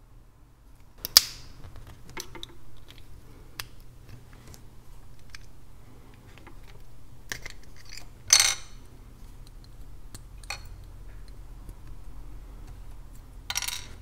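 Plastic casing of an Emtec USB flash drive being pried open with a small screwdriver: a sharp plastic snap about a second in, scattered small clicks and scrapes, and a short rasping scrape about eight seconds in.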